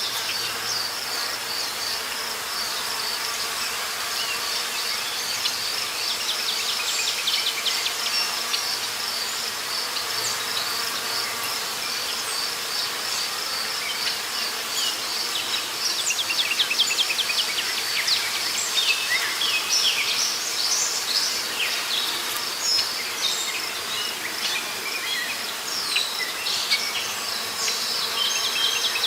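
Forest insect chorus: a steady, high, pulsing trill, with many short high bird chirps scattered over it from about six seconds in.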